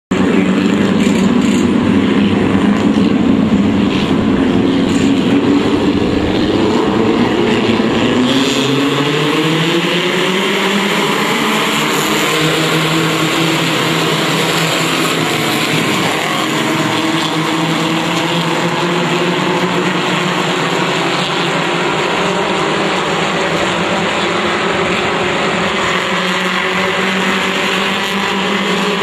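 A pack of pure stock race cars running together around the track, many engines at once. Their pitch rises about eight to twelve seconds in, then holds fairly steady.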